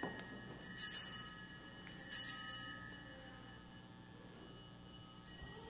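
Altar bells ringing at the elevation of the chalice, marking the consecration of the wine. Two bright, high jingling rings come about a second and a half apart, each fading away, with a few fainter touches near the end.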